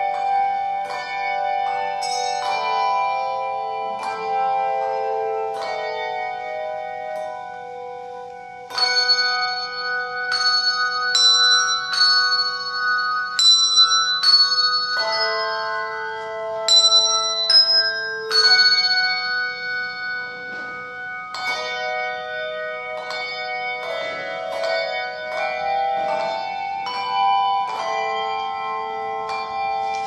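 Handbell choir ringing a slow piece in chords, each struck note ringing on after it is sounded. The playing grows louder about nine seconds in and eases back about ten seconds later.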